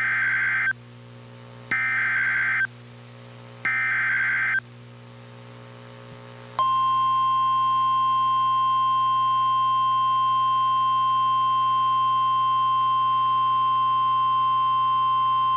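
NOAA Weather Radio EAS/SAME alert: three short warbling digital header bursts sent a second apart, then about two seconds in the clear and the steady 1050 Hz warning alarm tone, held for about nine seconds. It announces a new warning, here a severe thunderstorm warning.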